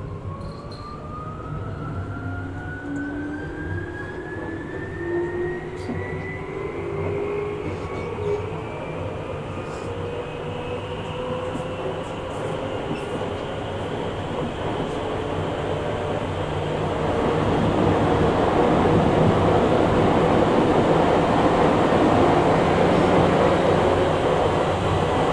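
Tokyu 8500 series electric train with Hitachi traction motors accelerating: the motor whine rises steadily in pitch over the rumble of the running gear. About two-thirds through, the wheel and rail noise grows louder as the train gathers speed.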